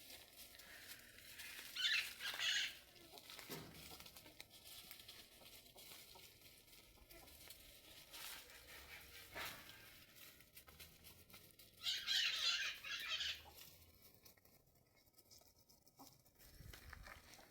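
Chickens, faint and low-key, with scattered clicks and two short, loud, hissy bursts, about two seconds in and about twelve seconds in.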